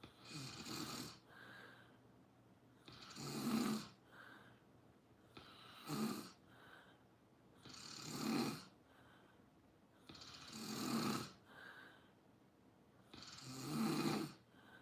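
Someone asleep snoring in a steady rhythm: six loud snores about every two and a half seconds, each with a softer breath between.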